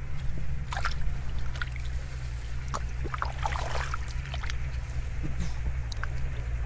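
Shallow water splashing and trickling as fish are caught by hand, with scattered small splashes and a longer splash about three and a half seconds in, over a steady low hum.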